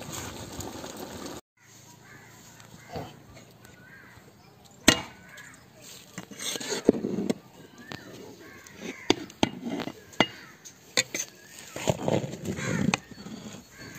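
A ladle knocking and scraping against a large aluminium pot as the cooked chicken biryani rice is turned over, with sharp clinks scattered through the second half. Crows caw faintly in the background.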